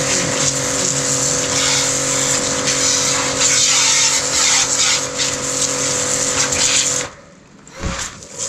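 Yodha YD 120 electric car pressure washer running: a steady motor hum under the hiss of the water jet. It cuts off about seven seconds in and starts up again near the end.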